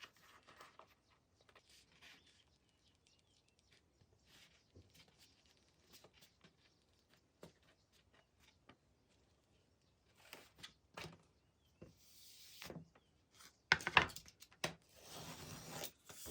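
Scattered light taps, clicks and rustling from hand work on wooden shelf parts, growing louder near the end with a cluster of sharp knocks and short scraping rasps.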